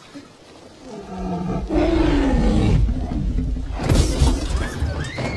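Tyrannosaurus rex roar, a film sound effect: after a quiet first second, a long, loud roar swells and falls in pitch, and a second sudden loud burst comes about four seconds in.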